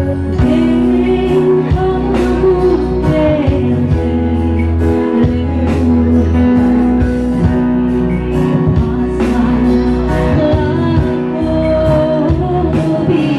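A woman singing a song solo into a handheld microphone, with instrumental accompaniment throughout.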